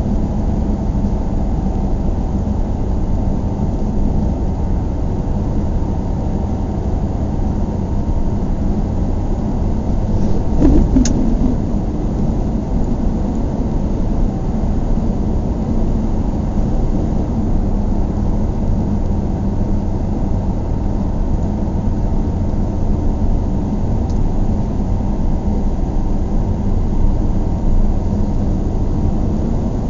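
Steady low rumble of a car driving on a highway: engine and tyre noise. About ten seconds in there is a brief swell with a short pitch glide and a click.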